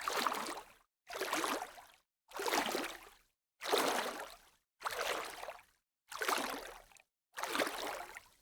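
Light water splashing: seven short separate splashes, about one every 1.2 seconds, each starting suddenly and fading out, with silence between them.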